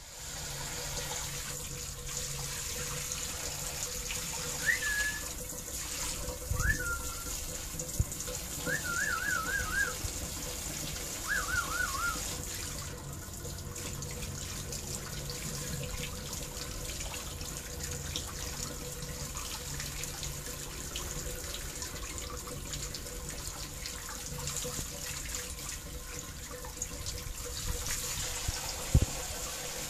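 Steady hiss of a fine water spray showering a black-capped lory and its wire cage, with a few short warbling whistles in the first half.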